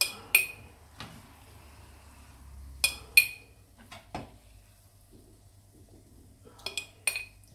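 A metal spoon clinking against a glass jar as the paste is spooned in from a frying pan. Sharp ringing clinks come in quick pairs or threes, at the start, about three seconds in and near the end, with a few duller scrapes and knocks between.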